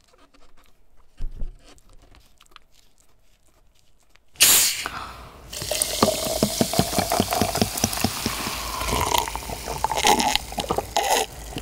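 A large plastic cola bottle is twisted open, with a sudden sharp hiss of escaping gas about four seconds in. Cola is then poured into a glass jar mug over ice, glugging and fizzing, and the pitch of the pour rises as the glass fills.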